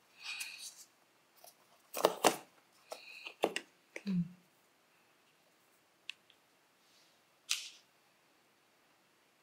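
Hands handling a MacBook Pro's cardboard packaging and accessories: a quick rustle, then a run of sharp clicks and knocks as items are lifted out of the insert tray, with a dull thud about four seconds in. After that it is mostly quiet, with a small click and a short swish near the end.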